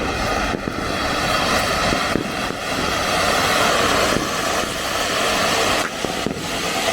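Ground firework spraying sparks with a steady, loud hiss that dips briefly a few times.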